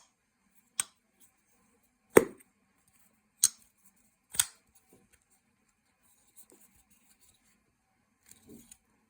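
Sitivien ST152 folding pocket knife being worked open and shut: four sharp clicks, each with a brief snap, spaced a second or so apart in the first half, as the blade snaps into place. Faint handling rustle follows.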